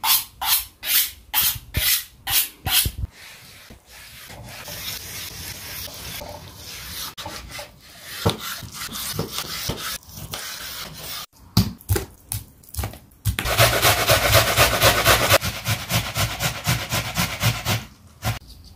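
A knife drawn along a honing steel in about seven quick, ringing strokes, then a knife slicing raw meat on a wooden cutting board with a few knocks of the blade on the board. After that come fast rasping strokes of a stainless-steel box grater shredding vegetables, slowing down near the end.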